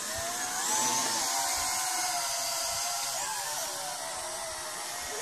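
Apex toy quadcopter's small electric motors and propellers whining in flight, the pitch wavering up and down as the throttle changes, rising about a second in and again briefly near the middle.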